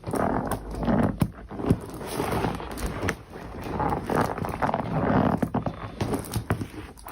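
Havaianas rubber boots squeaking and rubbing in irregular bursts, mixed with short clicks and knocks.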